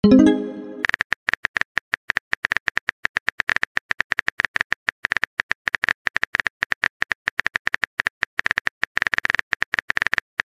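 Rapid, even clicking of a phone keyboard typing sound effect, several clicks a second without a break. A short pitched pop at the very start marks a chat message arriving.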